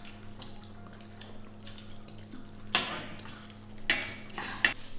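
Tableware clinking during a meal: bowls and utensils knock together in three sharp clinks in the second half, over a low steady hum.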